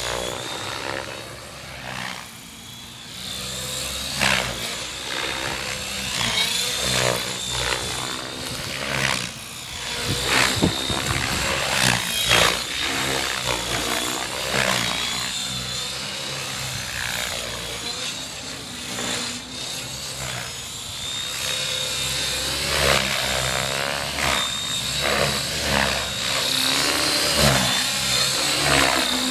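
Radio-controlled helicopter flying 3D aerobatics: a steady high whine with repeated loud whooshes of the rotor blades as it flips and swoops.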